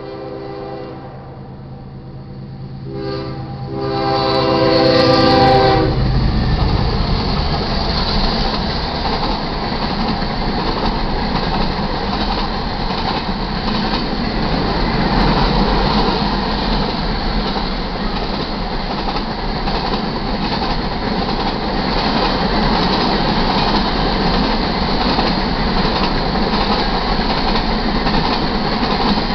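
Diesel freight locomotive horn sounding for a grade crossing: a blast, a short one, then a long one ending about six seconds in. The train then rolls past with a steady rumble and the clickety-clack of wheels as CSX covered hopper cars of a sand train go by.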